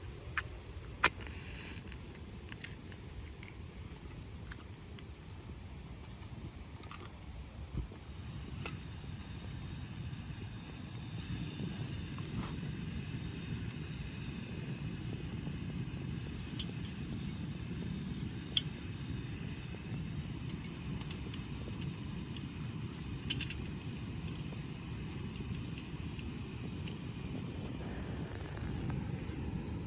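Steady wind noise on the microphone that grows stronger about eight seconds in, with a few sharp clicks.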